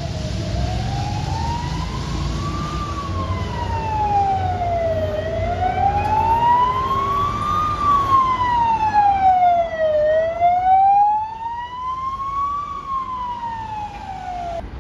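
Police car siren sounding a slow wail that rises and falls about every five seconds, over low traffic rumble. It grows louder toward the middle and fades near the end as the car passes.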